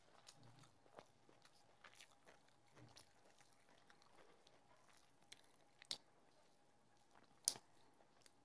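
Faint eating sounds: soft chewing and fingers mixing rice with leafy greens, with scattered small clicks and two sharper clicks about six and seven and a half seconds in.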